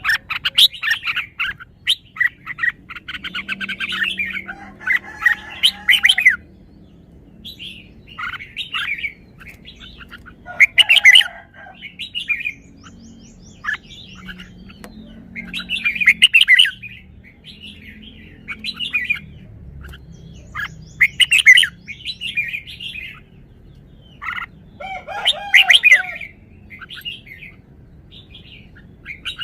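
Red-whiskered bulbul singing: a dense run of quick notes at first, then short, loud warbled phrases repeated every few seconds.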